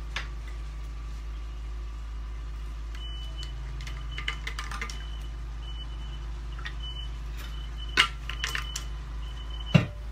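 A vehicle's reversing alarm beeping repeatedly, a high tone starting and stopping over and over from about three seconds in, over a steady low hum. Two sharp knocks near the end are the loudest sounds.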